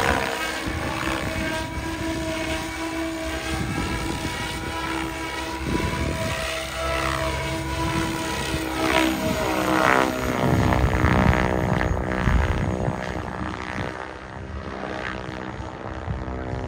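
SAB Goblin Genesis RC helicopter flying aerobatics, its rotors and drive making a steady pitched whine. The pitch sweeps and the sound is loudest as it passes low, about nine to twelve seconds in, then fades as it climbs away.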